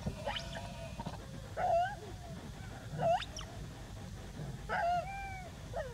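Infant long-tailed macaque giving a series of about five short whimpering calls, some arching coos and some sharp rising squeaks, about one every second or so.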